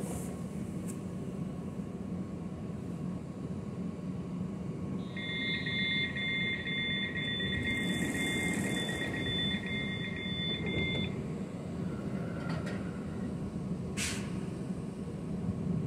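Electric multiple unit standing at the platform with a steady hum, sounding its door-closing warning: a high two-tone beeping for about six seconds. The doors then shut, with a short sharp sound near the end.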